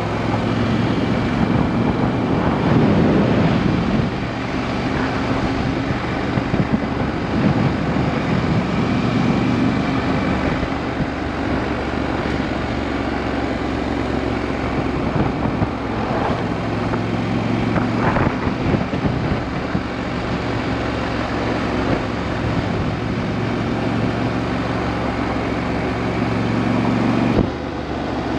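Motorcycle engine running under way, its pitch rising and falling several times with the throttle, over a steady rush of wind on the microphone. The sound changes abruptly about a second before the end.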